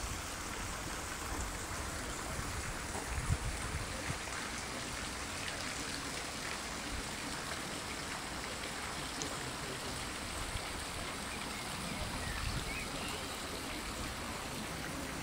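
Steady rush and splash of running water from a garden fountain. Low rumbles of wind on the microphone come near the start and about three seconds in.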